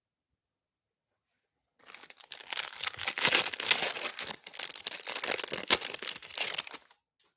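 Clear plastic wrapper of a Panini Prizm Draft Picks hanger pack of trading cards being torn open and crinkled by hand. It starts about two seconds in and runs for about five seconds as a dense crackling, then stops.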